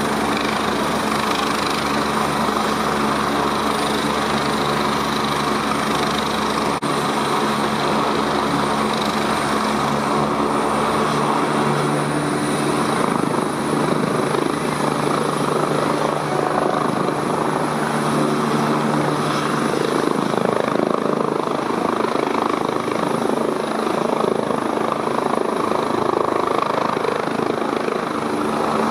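Eurocopter EC145 twin-turbine helicopter running with its rotor turning: a steady turbine whine over the rotor's noise. The whine rises a little as power comes up, and the helicopter lifts off into a hover near the end.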